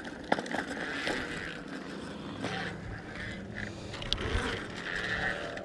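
Bicycle rolling along a concrete path: steady tyre and wind noise at a handlebar-mounted camera, with a few light clicks and rattles from the bike.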